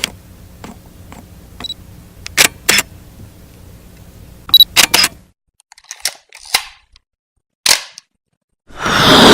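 Short, sharp click sound effects, like a camera shutter, sound one after another at uneven spacing. Near the end a loud rushing sound swells up.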